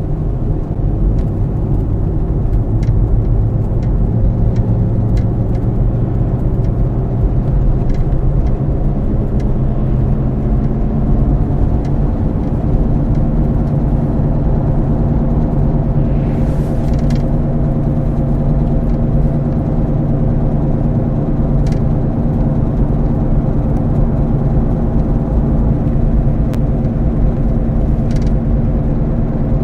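Car on the move with a bad wheel bearing droning: a steady low hum of several held tones over road rumble.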